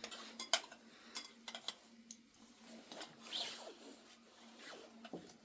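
Light clicks and knocks with short rustling, as of dishes and household things being handled, over a faint steady hum.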